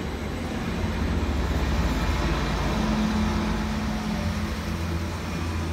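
Greater Anglia Class 755 Stadler bi-mode unit running in to the platform: a steady rumble of wheels on rail with a low hum underneath. A faint steady tone joins for a couple of seconds in the middle.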